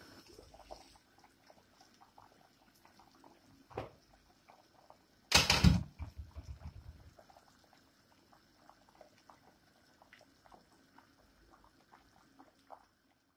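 Water boiling around a whole chicken in an open stainless steel pot, bubbling with faint irregular pops. A knock comes near four seconds in, then a loud clatter at about five and a half seconds.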